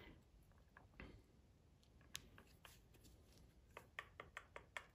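Faint clicks and small metal taps as the parts of an automotive rotary A/C compressor are handled. Near the end comes a quick run of small clicks, about four or five a second.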